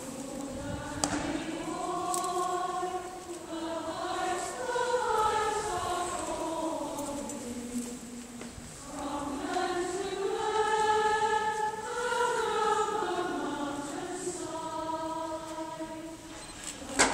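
A choir singing slowly in two long, held phrases, with a short break about halfway.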